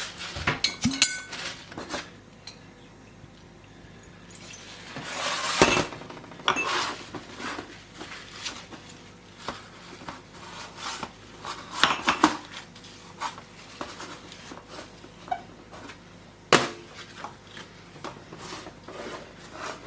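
Glass pint canning jars clinking and knocking on the bench as their rims are wiped clean with vinegar before lidding, with scattered clatter throughout and a brief rushing sound about five seconds in.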